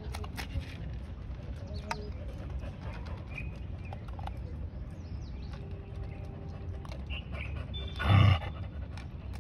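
A stray dog eating dry kibble from a plastic bowl, with scattered small crunching clicks, and one short, loud dog bark about eight seconds in.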